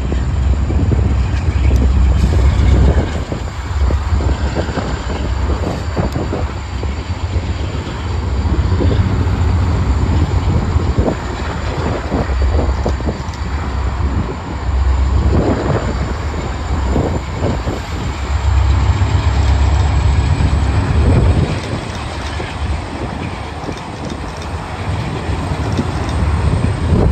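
Freight train led by Kansas City Southern, Union Pacific and Canadian Pacific diesel locomotives rolling across a steel girder bridge: a loud, uneven low rumble with scattered clanks from the wheels and rails.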